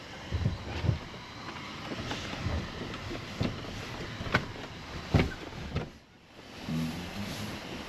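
4x4 crawling slowly over a rough off-road track, heard from inside the cabin: a low rumble with several sharp knocks as the vehicle jolts over the ground. It briefly goes quieter about six seconds in.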